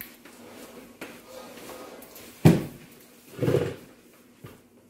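Handling knocks from a compound microscope being moved on a table: one sharp knock, then a duller, longer thud about a second later.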